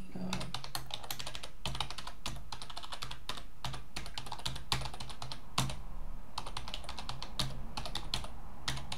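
Keystrokes on a computer keyboard typing a command: quick irregular runs of clicks, with a pause of about a second and a half a little past the middle, over a low steady hum.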